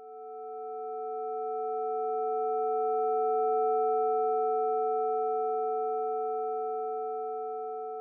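Synthesized chord of about five steady sine tones, the strongest in the middle register, swelling up to a peak about halfway through and then fading away. It is a Sonic Pi data sonification of the red wines' quality ratings.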